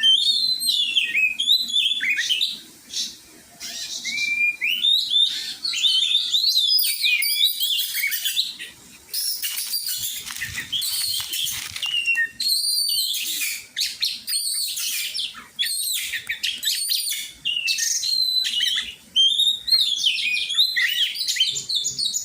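Oriental magpie-robin (kacer) singing: a long, continuous run of varied whistled phrases sliding up and down, mixed with scratchy chattering notes, broken by a few brief pauses.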